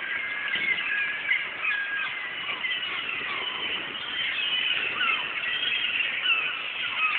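A flock of birds calling: many short, overlapping chirping and mewing calls with quick rises and falls in pitch, going on continuously.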